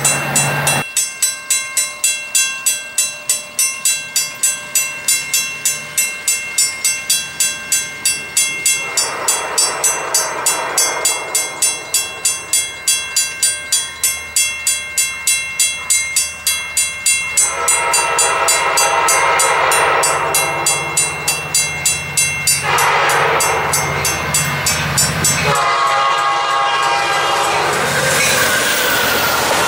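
Grade-crossing bells ringing in a steady rapid rhythm as an approaching EMD F59PHI passenger locomotive sounds its horn in several blasts, the longest starting a little past halfway. Near the end the locomotive and coaches rush through the crossing.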